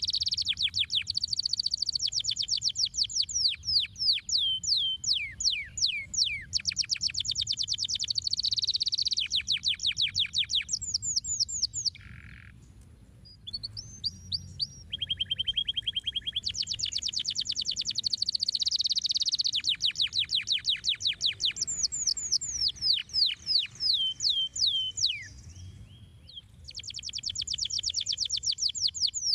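Domestic canary singing: long rolling trills of rapid repeated notes mixed with sweeping down-slurred notes, in long phrases broken by short pauses.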